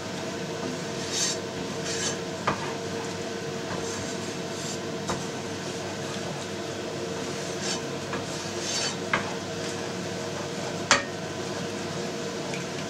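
Wooden spatula stirring and scraping a thick sour-cream and flour sauce, thinned with broth, around a frying pan. There are a few sharp knocks of the spatula against the pan, the loudest about eleven seconds in.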